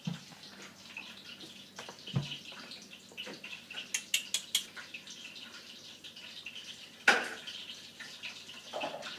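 A few light clicks and knocks over faint room noise: a quick run of four sharp clicks about four seconds in, then one louder knock about seven seconds in.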